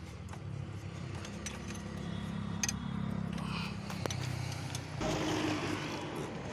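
A vehicle engine running with a steady low hum, which changes about four seconds in and grows louder and rougher at about five seconds.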